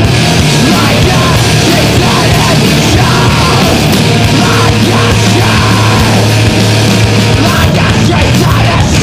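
Loud, dense screamo/noise-rock music with distorted guitar, drums and yelled vocals.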